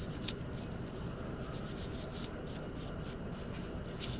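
Steel wool rubbed over a revolver's blued steel in light buffing strokes: faint scratchy swishes about two or three times a second, over a low steady hum.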